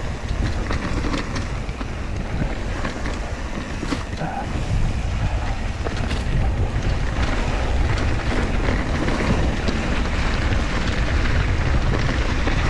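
Wind buffeting an action camera's microphone on a mountain bike descending a dirt singletrack, with the tyres rolling over the dirt and scattered clicks and rattles from the bike. The low rumble gets heavier about four and a half seconds in.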